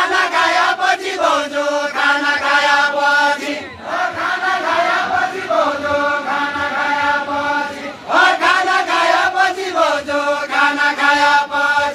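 A group of voices singing a deuda folk song together in long, chant-like held phrases, each about four seconds long, as part of the deuda khel line dance.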